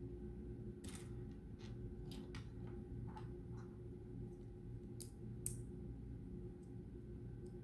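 Plastic LEGO pieces clicking and tapping as they are handled and pressed together, about a dozen faint, irregular clicks, two a little sharper about five seconds in, over a steady low hum.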